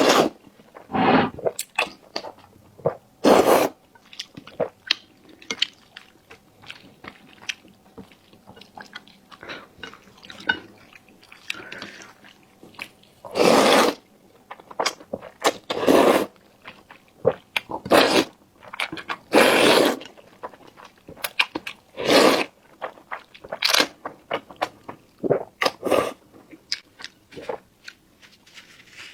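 Close-miked chewing and crunching bites of food, in irregular bursts with louder ones every few seconds.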